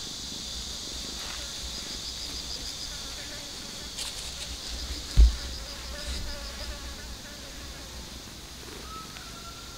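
Insects trilling in the grass: a steady high-pitched chorus with a rapid even pulsing. A brief low thump about five seconds in.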